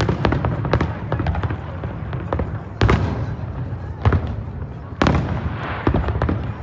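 Aerial fireworks going off in quick succession: a string of sharp pops and bangs with crackling between them. The biggest reports come about three and five seconds in, the later one followed by a spell of crackle.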